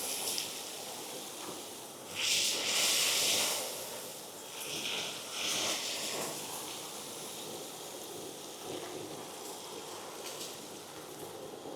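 ECOBULL TAN industrial vacuum's three-phase side-channel blower running with a steady airflow hiss. Louder hissing rushes come about two seconds in and twice more around five to six seconds as metal chips and shavings are sucked up.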